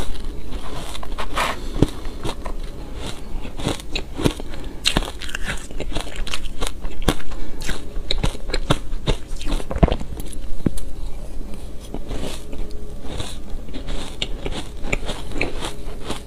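Close-miked crunching and chewing of shaved ice: a dense, irregular run of sharp crackles as mouthfuls are bitten.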